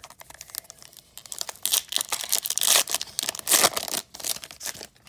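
A trading card pack's wrapper being torn open and crinkled by hand: irregular crackling with a few louder rips about two to four seconds in.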